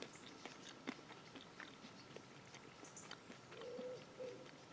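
Faint, crunchy chewing of popped and toasted barley grains, small clicks scattered throughout. A dove coos softly about three and a half seconds in.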